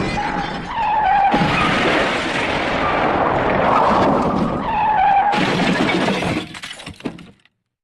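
The 'Elephant Smash' sound effect: loud crashing and shattering with a wavering, trumpet-like squeal, spliced into segments with abrupt cuts. It dies away and cuts off to silence shortly before the end.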